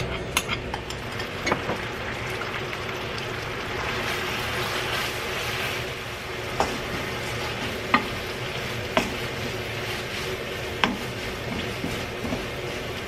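Shredded dried filefish frying in oil with a sticky gochujang sauce in a nonstick pan, sizzling steadily while a wooden spatula stirs it. Several sharp knocks come at irregular intervals as the spatula strikes the pan.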